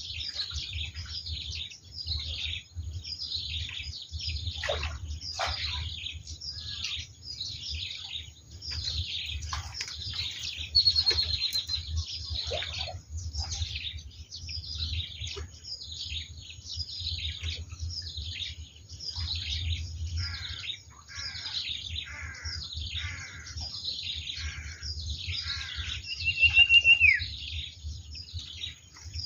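A chorus of small birds chirping without a break, many quick falling chirps overlapping. Two louder clear whistles stand out, one about a third of the way in and one near the end that holds a note and then drops. A steady low rumble runs underneath.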